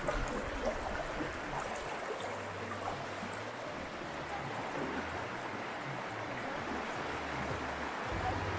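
Shallow river water rushing steadily, with splashing from people wading through it.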